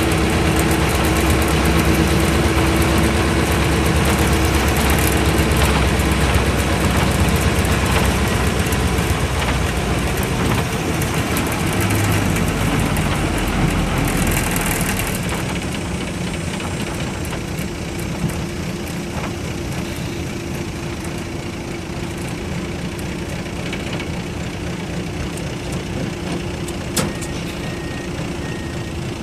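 Isuzu Cubic bus's V8 diesel engine heard from inside the cabin. It runs hard with heavy road noise at first, then eases off as the bus slows and pulls up at a stop, settling to a steady idle. There is a single sharp click near the end.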